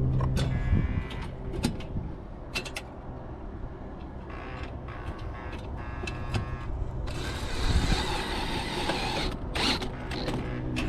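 Cordless drill driving a screw into brick to fasten a bird guard: short spurts of motor whine, then a harsher run of about two seconds near the end. Clicks and knocks of handling come in between.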